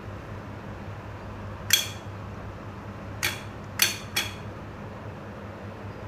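A 12 V DC solenoid door lock clicking as it is switched on and off with a two-wheeler ignition key switch: one sharp metallic click, then three more in quick succession about a second and a half later.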